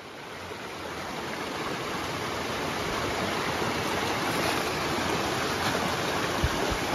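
Small mountain creek running steadily over rocks and a little cascade, fading up over the first couple of seconds.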